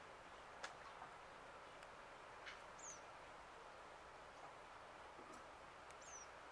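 Near silence with a few faint, high, short chirps from small birds, two of them quick falling notes, and a couple of faint ticks.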